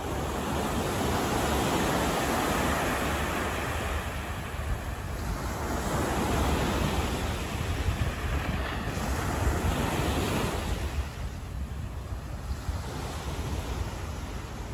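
Rushing noise that swells and fades about three times.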